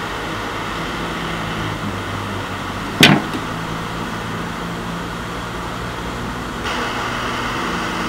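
Small blow torch hissing steadily as it heats the PL259 coax connector for soldering, with a single short click about three seconds in.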